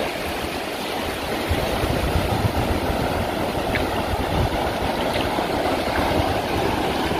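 Ocean surf washing over the shallows of a beach: a steady hiss, with an uneven low rumble of wind on the microphone underneath.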